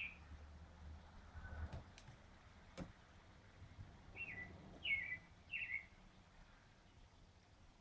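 A bird repeating the same short call over and over: brief notes that drop in pitch, one right at the start and then three in a row about two-thirds of a second apart. The calls are faint.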